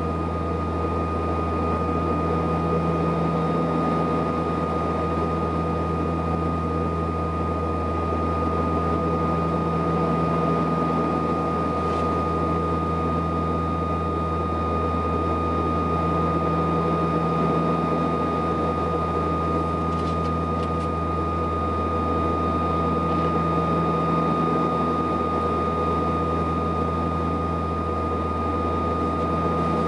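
Cabin drone of a Saab 340B in flight: its twin GE CT7 turboprop engines and propellers make a steady low hum with a thin, steady high tone on top. The hum swells and fades slowly about every seven seconds.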